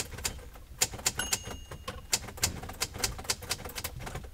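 Manual typewriter being typed on: a quick, uneven run of sharp key strikes, several a second.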